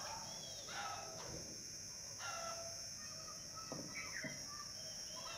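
Chickens clucking and calling in the background, with short bird chirps, over a steady high-pitched hiss.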